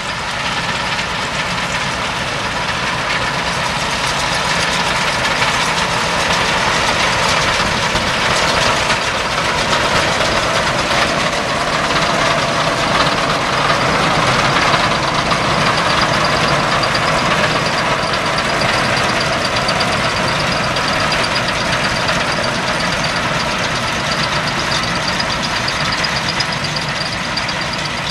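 Tractor engine running steadily under load while a Krone round baler works behind it, with a faint steady high whine from the machinery.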